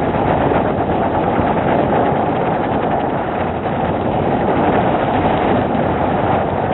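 Ground fireworks, spinners and fountains spraying sparks, heard as a steady, dense, muffled rumble with no high end.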